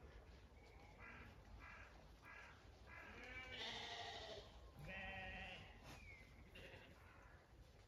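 Zwartbles sheep bleating, faint: a run of short, wavering bleats, then two louder, longer bleats in the middle and a few weaker ones after.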